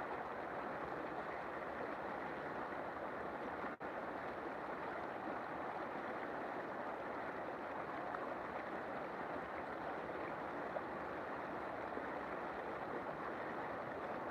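River water flowing in a steady rushing stream, with a momentary dropout about four seconds in.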